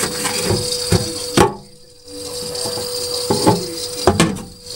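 Irregular knocks and clatter of things being handled, likely food containers in the fridge, with a brief lull about a second and a half in. A steady hum runs underneath.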